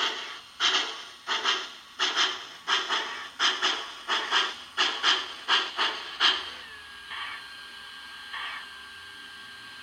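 Digital steam sound from an MTH HO-scale Southern Pacific cab-forward locomotive model: exhaust chuffs from its DCS sound system, coming quicker and growing fainter over about six seconds, then giving way to a steady tone with only a couple of faint chuffs.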